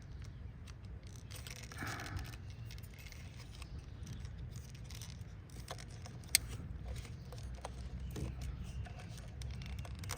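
Small clicks and rustles of hand work on the engine's wiring connectors and clips, with one sharp click about six seconds in, over a low steady rumble.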